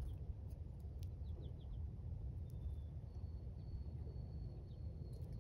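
Outdoor ambience: a steady low rumble, with faint bird chirps in quick runs of short falling notes about a second in and a thin steady high whistle from about three seconds in.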